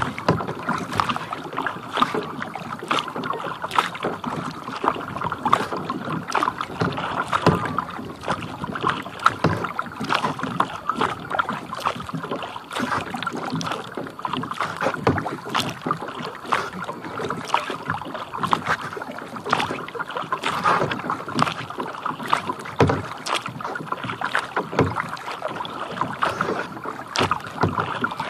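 Small waves lapping and slapping against the hull of a plastic kayak, a steady run of many small splashes close to the microphone.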